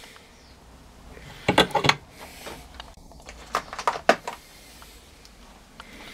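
Bench vise being tightened by hand onto a small brake caliper bolt: sharp metallic clicks and clinks in two clusters, about a second and a half in and again around four seconds in.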